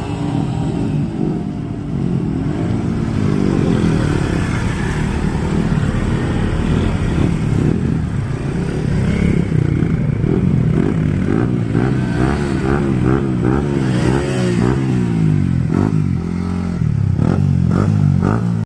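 Motorcycle engine revving, its pitch rising and falling over and over, with quicker blips of the throttle in the second half and a light mechanical clatter.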